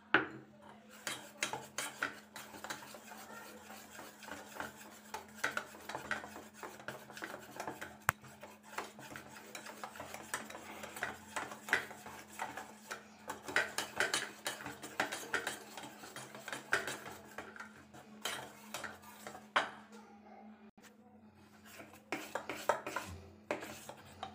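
A wire whisk beating semolina cake batter in a steel bowl, mixing in freshly added oil: a fast run of clinks and scrapes against the metal. The clatter pauses about twenty seconds in, then spoon stirring scrapes the bowl near the end.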